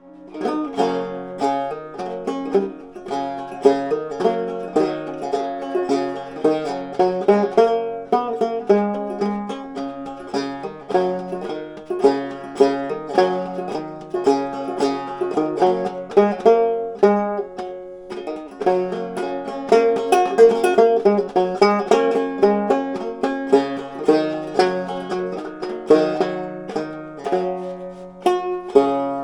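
Banjo played in a steady, quick run of plucked notes, ending near the close on a chord left to ring out.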